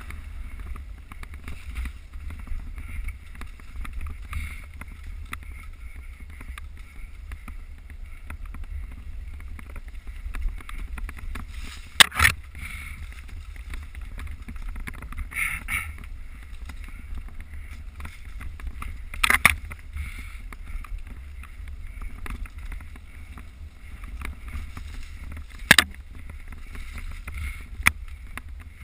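Wind rumbling on the microphone of a camera riding along on a mountain bike, with five sharp knocks or rattles scattered through it, the loudest about twelve seconds in.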